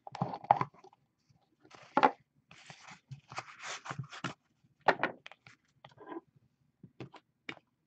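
Hands opening a sealed trading card box and taking out the cards: scattered rustles, scrapes and clicks of cardboard and plastic, with sharper knocks about half a second and two seconds in.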